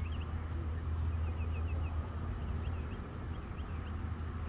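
Small birds chirping in quick short calls, over a steady low rumble.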